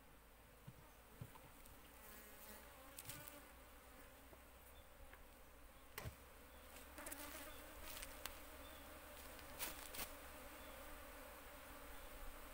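Faint steady buzzing of Asian honey bees (Apis cerana) around an opened wooden hive box, with scattered clicks and knocks from the box being handled.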